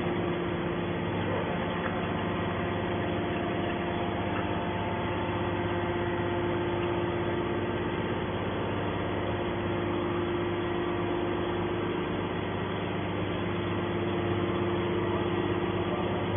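Hydraulic can baler running, its pump motor giving a steady, even hum with no change in pitch.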